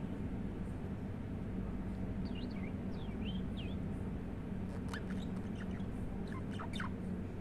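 Budgie chirping: a few quick warbling chirps about two seconds in, then a run of short, sharp high notes near the end, over a steady low hum.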